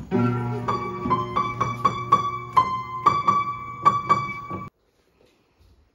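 Upright piano being played: a low chord, then a run of quick single notes with a repeated high note on top, about two to four notes a second. The playing cuts off suddenly about three-quarters of the way through.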